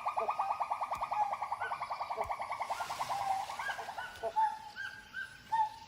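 Animal calls in forest: a fast pulsing trill of about ten notes a second that weakens and dies away about four seconds in, then short, spaced chirping notes.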